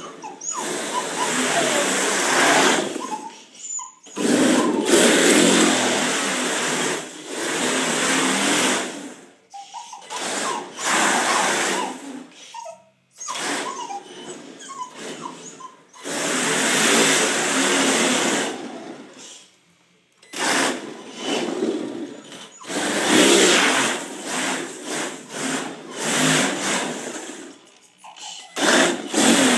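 HPI Pro D radio-controlled drift car with a brushless electric motor, driven in repeated throttle bursts of one to three seconds with short pauses, its motor whining and its tyres sliding across a smooth floor.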